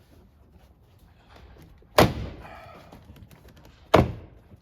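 Plastic retaining clips of a 2012 Toyota 4Runner's door trim panel popping loose as the panel is pried off the door: two sharp snaps about two seconds apart, each followed by a brief rustle of the panel.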